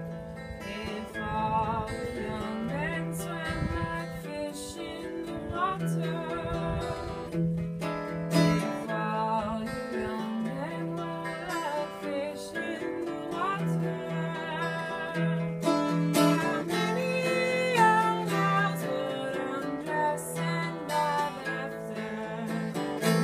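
Acoustic guitar music, strummed, with a wavering melody line above it.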